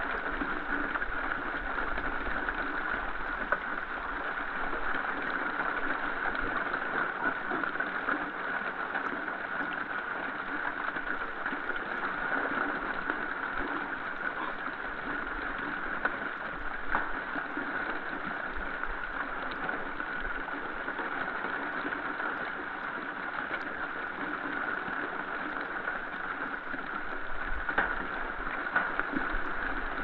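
A steady, even hiss, with faint scattered clicks and rustles from a group of wild boars rooting and feeding on the forest floor, a little busier near the end.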